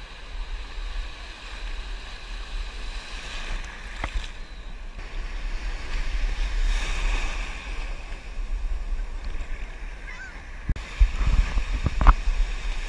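Ocean surf breaking and washing around a microphone held at water level, with a low rumble of water and wind on the mic. A wave surges through about six seconds in, and several sharp splashes hit near the end.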